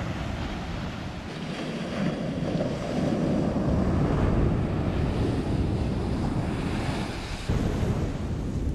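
Waves breaking on a sandy beach, with wind buffeting the microphone.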